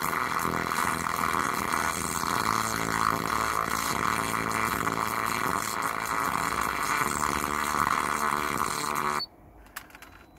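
Alpine 7588 car stereo head unit putting out faulty sound: loud, noisy playback with shifting tones under a harsh hiss, which cuts off suddenly about nine seconds in, followed by a faint click.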